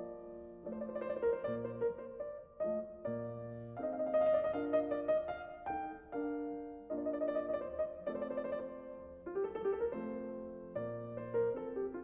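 Piano-voiced keyboard playing a melody over chords, with occasional low bass notes and no pause.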